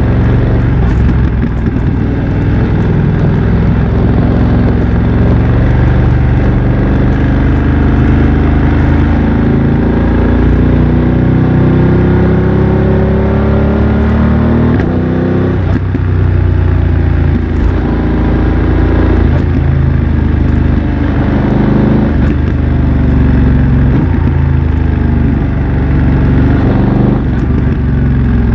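BMW F900 XR's parallel-twin engine through a MIVV X-M1 aftermarket exhaust, riding under way. It pulls up through the revs for several seconds, drops sharply at a gear change about halfway through, then runs at steadier revs.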